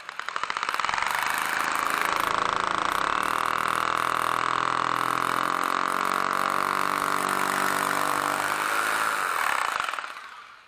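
Electric drill boring a hole into a brick wall for a dowel: the motor spins up, runs steadily under load for about ten seconds, then winds down near the end.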